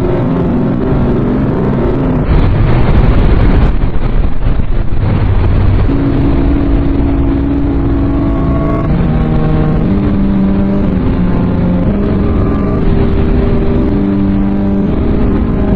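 Loud, heavily distorted, low-fidelity emergency alert alarm audio. A rumbling noise bed has a harsher burst of static about two seconds in. Later come long held tones that step from one pitch to another, like a slow eerie melody.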